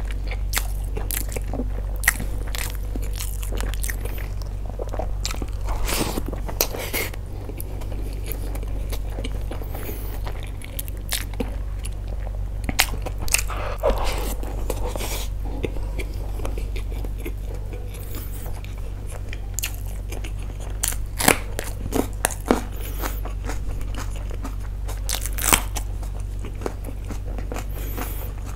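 Mouth sounds of eating by hand: chewing and biting with occasional crunches and many short sharp clicks, over a steady low hum.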